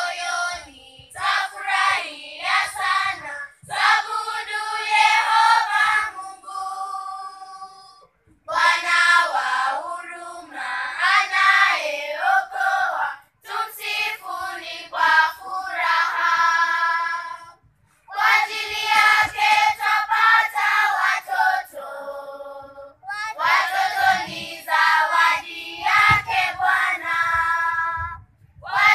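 Children's choir singing together, in phrases of a few seconds broken by short pauses for breath.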